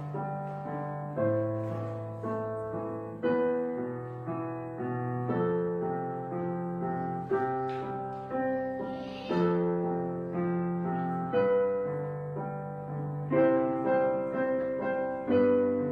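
Gentle solo piano background music, with notes and chords struck about once a second and left to fade.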